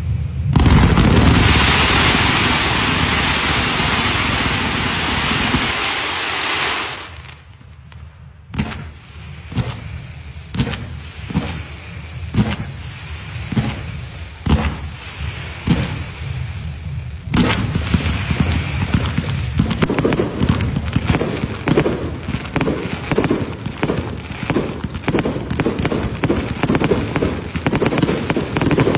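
Fireworks display. A dense, loud hiss for the first several seconds gives way to separate bangs about once a second. Then, from a little past halfway, rapid continuous crackling and popping.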